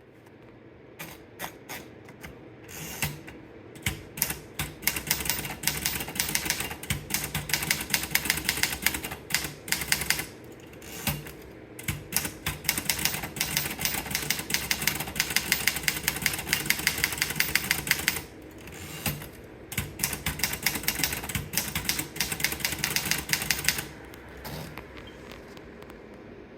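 Remington Rand 2000 typewriter being typed on: rapid runs of key strikes with short pauses, stopping a few seconds before the end.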